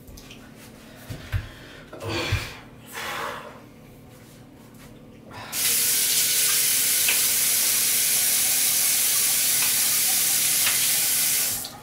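Bathroom sink faucet turned on about halfway in, running water steadily for about six seconds and shut off near the end. Before it come a few light knocks and handling sounds at the sink.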